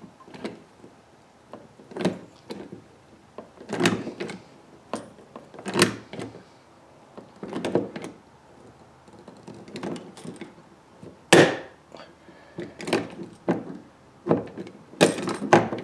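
Hand lever rivet tool being cranked, each squeeze giving a short clunk about every two seconds as it pulls a 3/16-inch tri-grip rivet through a boat's aluminium gunwale. There is a louder crack about eleven seconds in and a quick run of clicks near the end.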